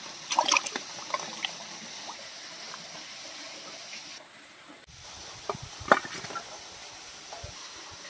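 Water splashing and sloshing in a steel bowl as cut fish pieces are washed by hand, with brief clusters of sharp splashes and knocks near the start and again past the middle.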